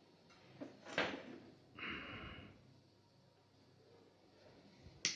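A sharp click about a second in, then a brief buzz of under a second from the Arduino fire alarm's buzzer as the flame sensor detects a flame.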